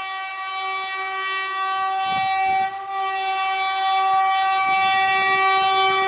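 Horn of an Indian Railways WAP-4 electric locomotive sounding one long, steady blast as the train approaches, with a brief dip nearly three seconds in. The train's low rumble runs underneath.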